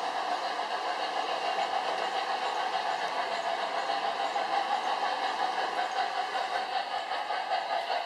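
Model trains running on the layout's track: a steady whirring rumble of wheels and motors that wavers slightly in loudness.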